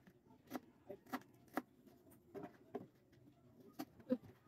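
Kitchen knife slicing red onion on a plastic cutting board: light, irregular taps of the blade striking the board, about two a second, the sharpest near the end.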